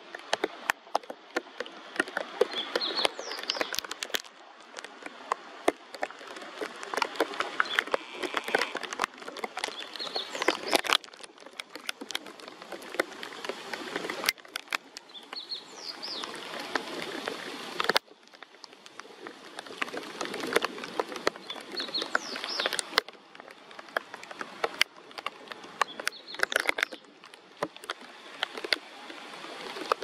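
Rain pattering in many sharp, irregular drops, with a small songbird singing short high phrases every few seconds.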